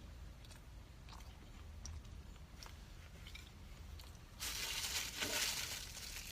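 Close-up eating sounds: soft, scattered chewing clicks, then about four seconds in a louder crunching that lasts about two seconds.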